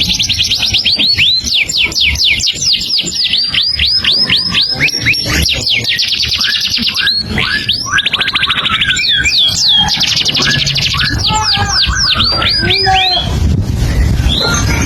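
A captive songbird singing a continuous, varied song: fast runs of repeated whistled sweeps that change phrase every second or two, without a break.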